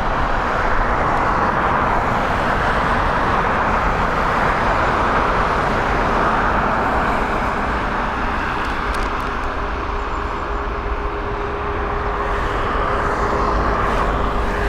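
CFM LEAP-1B jet engines of a Boeing 737 MAX 8-200 airliner arriving, a steady rushing noise; a faint steady hum comes in about halfway through.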